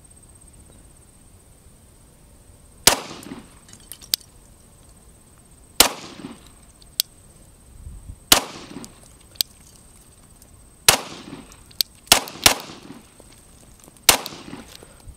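Glock 17 9mm pistol fired seven times at a slow, irregular pace, with a quick double shot near the end. Each shot is followed by a short echo, and fainter sharp cracks fall between some of the shots.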